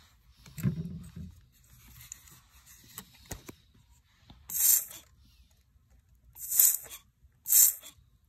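Hand spray bottle squirted three times: short sharp hisses of mist, one about halfway through and two more about a second apart near the end. A soft low bump comes about a second in.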